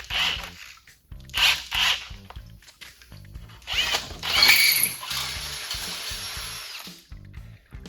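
Drill with a keyless chuck driving a 7/16-inch cobalt bit, started in three short bursts and then running steadily for about two seconds. The round-shank bit is slipping in the chuck.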